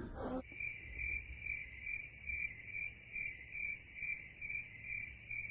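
Crickets chirping as an edited-in sound effect: an even, high chirping pulse about twice a second that starts abruptly about half a second in. It is the stock 'awkward silence' cue.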